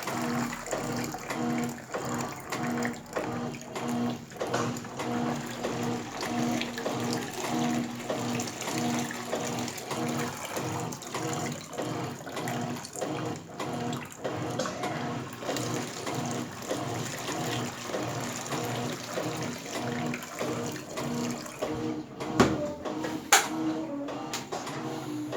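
Top-loading washing machine in its wash cycle, the agitator swishing the laundry through water with a rhythmic pulsing motor hum. Two sharp clicks near the end.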